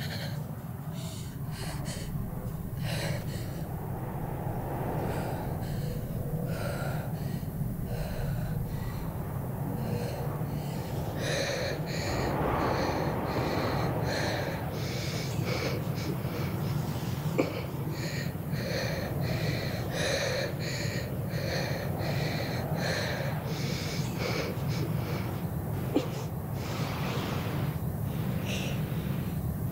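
A woman's ragged, strained breathing with gasps and sobbing breaths, repeated irregularly over a steady low drone.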